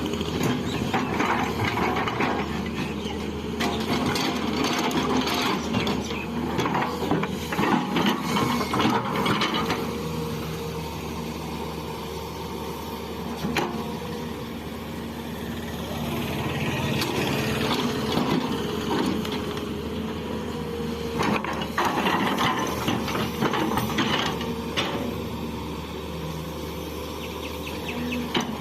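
Hydraulic excavator's diesel engine running with a steady drone, growing louder with rough noise and irregular knocks in two stretches as the machine works.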